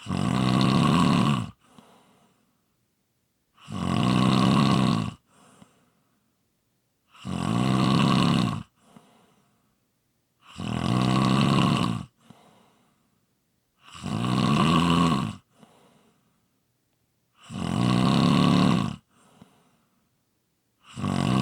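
A person snoring in a steady rhythm: a loud snore about every three and a half seconds, each lasting about a second and a half, followed by a faint short breath out.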